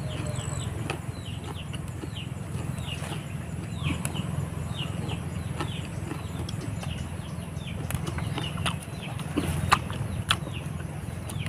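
Chewing and crunching of raw leaves, with a few sharp crunches near the end. Behind it, birds give many short falling chirps over a steady low hum.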